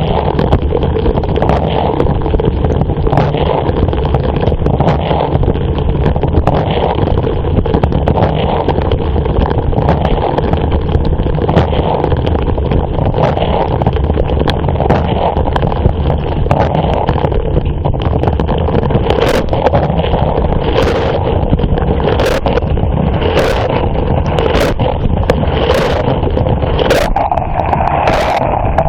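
Inside a running dishwasher: steady rushing and churning of the water spray. In the last third, sharp knocks come roughly once a second.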